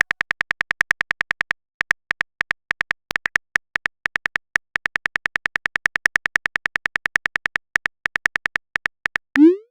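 Rapid synthetic keyboard typing clicks from a texting-story app, about seven a second in runs with short pauses, then a short rising tone near the end, the app's message-sent sound.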